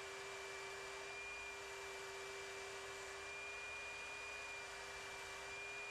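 HVLP spray system running during finish spraying: a steady hiss with a constant whine and a lower hum underneath, the higher whine wavering slightly in pitch.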